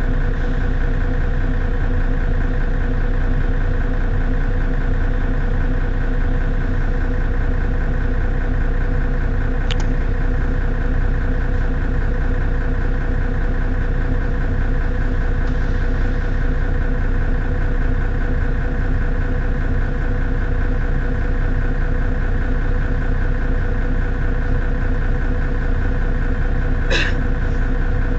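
Mercedes-Benz Citaro city bus engine idling steadily while the bus stands still. A brief click comes about ten seconds in, and a short sharp sound near the end.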